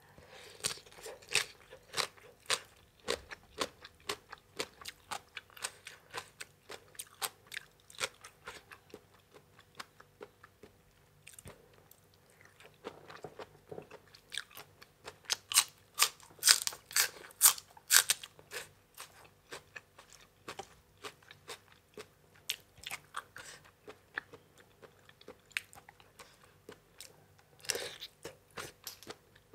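Close-miked chewing and crunching while eating spicy som tam with crisp raw vegetables: a long run of short, sharp crunches, loudest about halfway through.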